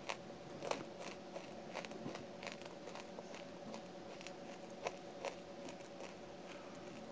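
Close-up chewing of dry lumps of clay: irregular sharp crunches and crackles, a few a second, over a faint steady hum.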